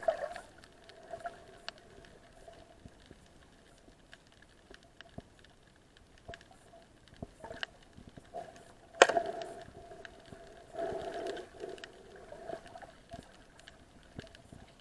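Muffled underwater sound picked up through a camera: scattered faint clicks and knocks over a low steady hum, with one sharp knock about nine seconds in and a short burst of noise a couple of seconds later.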